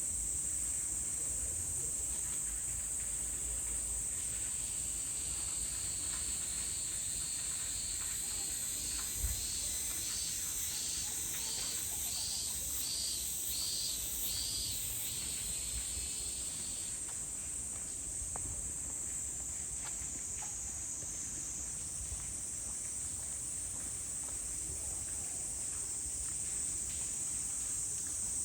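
A steady high-pitched chorus of summer insects. From about five seconds in to about seventeen seconds in, another insect calls over it in a regular pulsing rhythm, about one and a half pulses a second, and then stops. Underneath is a faint low rumble, with a single brief knock about nine seconds in.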